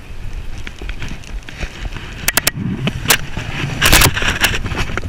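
Handling noise from a hand brushing against the camera and its microphone: a few sharp clicks, then a louder rubbing burst about four seconds in, over a steady low rumble.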